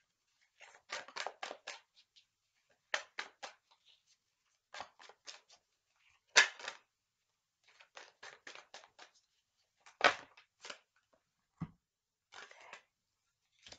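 A deck of tarot cards being shuffled by hand: quick runs of three to five soft card slaps with short pauses between, and two sharper slaps about six and ten seconds in.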